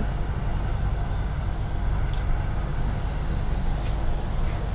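Steady low background rumble, with a couple of faint light clicks.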